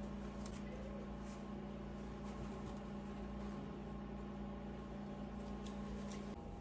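An appliance motor hums steadily indoors, with a few faint light ticks. The hum cuts off near the end.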